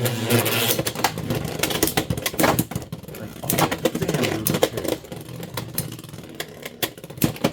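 Beyblade X tops, Blackshell and Drawn Dagger, spinning and clashing in a plastic stadium: rapid hard plastic-and-metal clacks and rattling throughout, some louder hits standing out.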